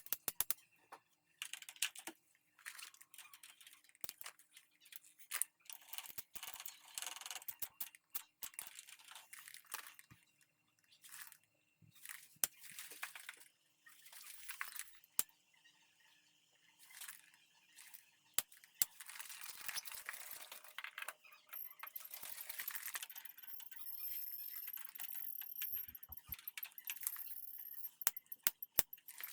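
Hand work with tools and electrical hardware: scattered clicks, clinks and short scraping and rustling bursts, with a faint steady high whine near the end.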